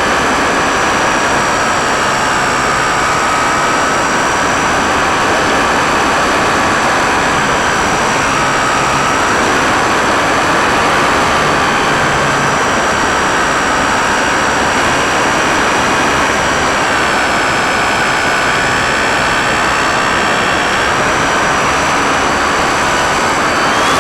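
Electric motor and propeller of an E-Starter RC airplane running steadily under power, heard from a camera mounted on the plane: a high whine over a loud rush of air, the whine's pitch dipping and rising slightly with throttle or airspeed.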